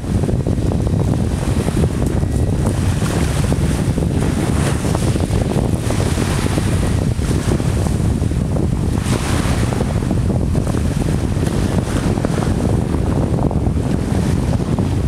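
Strong wind buffeting the microphone over the wash of a choppy sea, loud and steady throughout.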